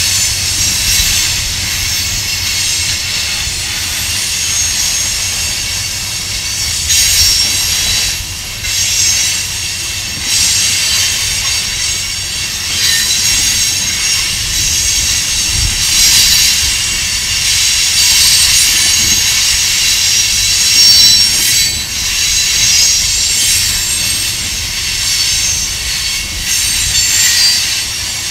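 Freight train cars, covered hoppers and tank cars, rolling past at close range. The wheels squeal in thin, high, wavering tones over a steady low rumble.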